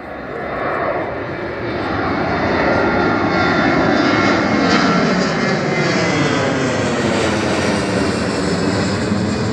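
Twin-engine jet airliner climbing out overhead just after takeoff, its engine noise swelling over the first two seconds and then holding steady, with a tone that slowly falls in pitch as it passes over.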